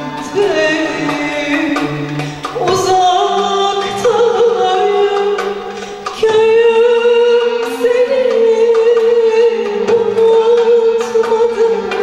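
A female solo voice singing a Turkish art music (Türk sanat müziği) song in long held, wavering notes, with violins and the ensemble accompanying. The music dips briefly about halfway through, then comes back louder.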